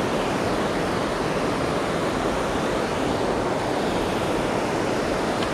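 Steady rush of river water, an even noise that does not change or break.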